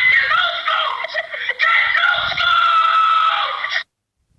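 A meme sound-effect clip from a soundboard: a loud, shrill screaming cry, thin and band-limited, that stops abruptly after about four seconds.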